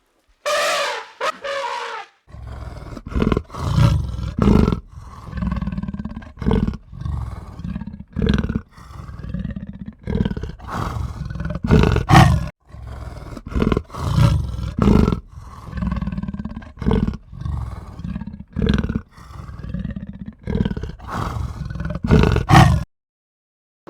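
Deep, rough animal calls in many irregular bursts, each a second or less, starting about two seconds in and cutting off abruptly near the end.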